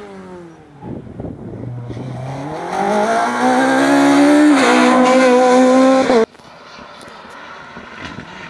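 Rally car engine coming up the stage at full throttle: the revs climb steeply and hold high, dip briefly for a gear change about four and a half seconds in, and then cut off suddenly. At the start a falling engine note is heard, and after the cut only a quieter mix of faint outdoor noise.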